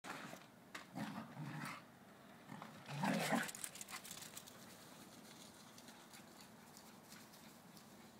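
Shih Tzu barking a few times in play, the loudest bark about three seconds in.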